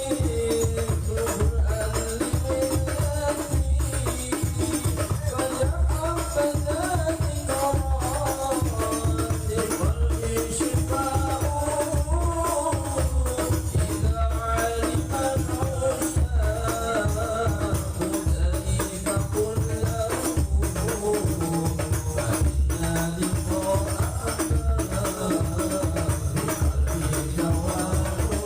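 Sholawat music: a steady rhythm of hand drums and tambourine jingles under a wavering melody line.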